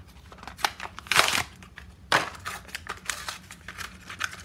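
Plastic blister pack and card backing of a diecast toy car being crinkled and torn open: a run of irregular rustles and sharp crackles, loudest a little over a second in.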